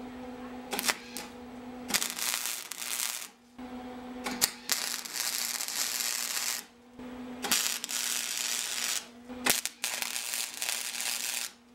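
A wire-feed (MIG-style) welder's arc crackling and sizzling in four separate bursts of about one and a half to two seconds each, laying tack welds on steel tubing. A steady low hum fills the gaps between the bursts.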